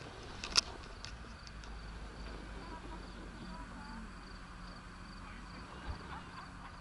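Crickets chirping in a steady, evenly pulsed high-pitched trill, with a faint low hum underneath and a single sharp click about half a second in.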